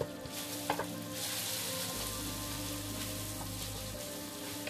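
Ginger garlic paste sizzling in hot oil in a nonstick pan as it is stirred with a wooden spatula, a steady hiss with one sharp knock just under a second in.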